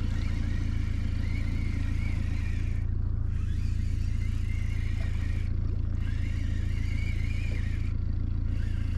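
Boat's outboard motor running steadily at trolling speed, a constant low drone with a fainter wavering high whine that drops out briefly a few times.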